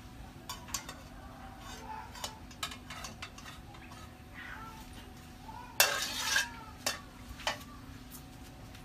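A utensil stirring and knocking in a cooking pot: scattered clinks and scrapes, with one louder clatter about six seconds in.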